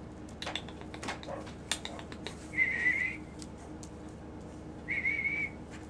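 Five-week-old puggle puppy giving two short, high-pitched, wavering whimpers about two seconds apart, after a couple of seconds of rustling and light clicks.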